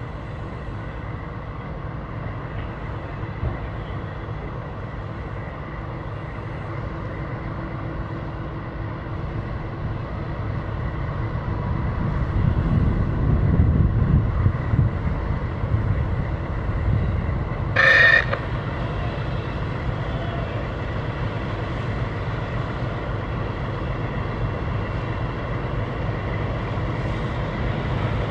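Low, steady rumble of ship engines that swells for a few seconds in the middle, with one short horn toot about two-thirds of the way through.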